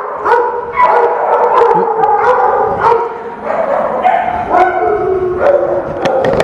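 Many shelter dogs in kennels barking at once, short sharp barks overlapping one another without a break.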